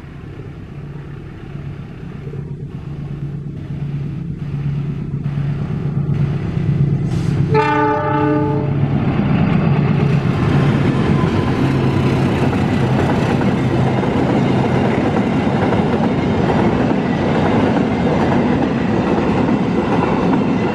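KAI CC203 diesel-electric locomotive approaching with its engine running, growing louder as it nears, and sounding its horn once for about a second, about eight seconds in. It then passes close, followed by a long train of empty cement flat wagons rolling by on the rails.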